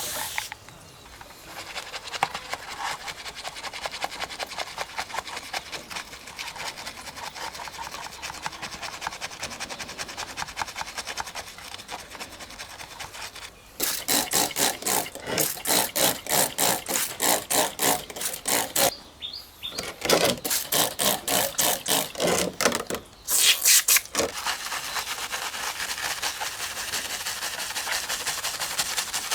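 Hand scrubbing on a 1:24 diecast model car: a steady fine rubbing, then, about halfway through, louder rhythmic back-and-forth strokes at about two to three a second in two runs with a short break between, and steady rubbing again near the end.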